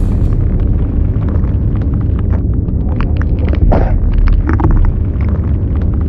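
Designed sci-fi sound effect of a giant alien mothership: a deep, steady rumble with scattered crackles and clicks, and a brief louder burst a little past halfway.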